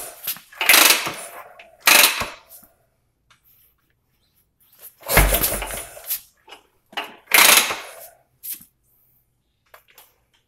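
Motorcycle kick-starter being kicked four times, each kick a loud burst of about a second as the engine is spun over, with a pause of about three seconds after the second kick. The engine does not catch and run.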